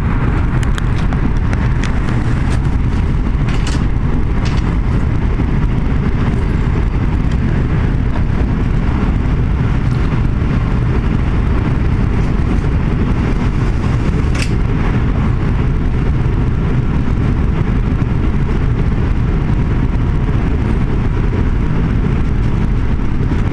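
A passenger train running at speed, heard from inside the carriage: a steady low rumble of wheels on track, with a few sharp clicks.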